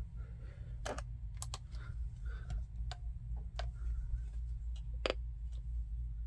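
Scattered sharp clicks and taps, about eight spread irregularly over several seconds, over a steady low hum.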